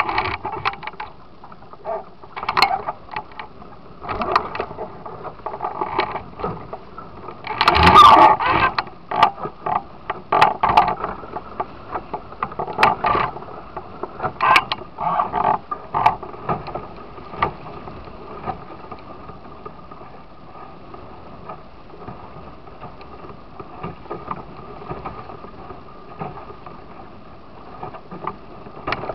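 Musto Skiff's hull slapping and splashing through choppy water, with wind noise on the microphone: irregular slaps, the loudest splash about eight seconds in, easing into a steadier rush of water and wind in the second half.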